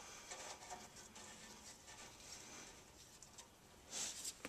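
Faint handling noises: scattered small clicks and taps, with a short rustle about four seconds in.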